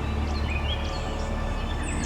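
Small birds chirping: a scattering of short, quick down-slurred notes over a steady low rumble.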